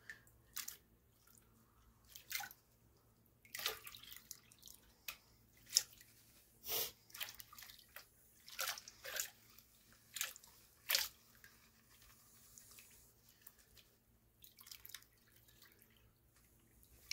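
Muddy water splashing and dripping as a plastic gold pan is dipped, shaken and tilted in a washtub, washing broken-up clay and light gravel out over the pan's lip. The splashes come in short, irregular bursts, sparser just past the middle.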